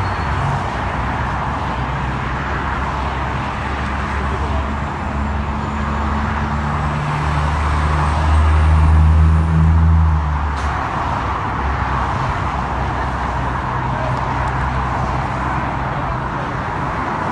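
Road traffic noise: a steady hiss of passing traffic with a vehicle engine's low running hum, loudest about eight to ten seconds in.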